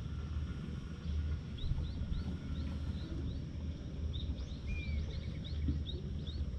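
Cat purring while being stroked, a low rumble that swells and fades about once a second with its breathing. Over it, a bird repeats short, high rising chirps about twice a second from a second or so in.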